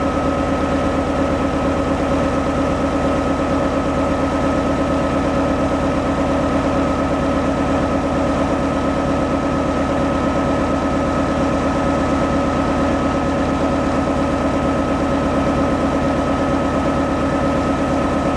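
Morbark 1300 tub grinder's diesel engine running at a steady speed, with a thin high whine held steady above it.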